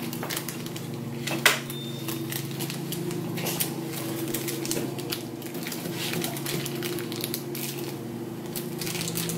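A small clear plastic packet being pulled and twisted by hand, its thin plastic crinkling and crackling in irregular clicks while it resists opening. A steady low hum sits underneath.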